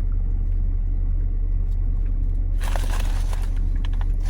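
Steady low rumble of a car's engine idling, heard from inside the cabin, with a brief rustling and a few clicks about two and a half seconds in.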